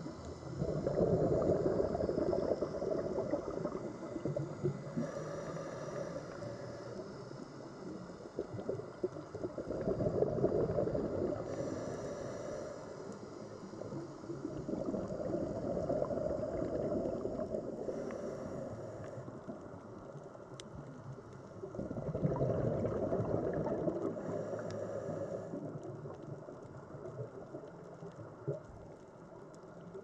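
Scuba diver breathing through a regulator: a bubbling gurgle of exhaled air, then a short hiss of inhaling, repeating about every six seconds.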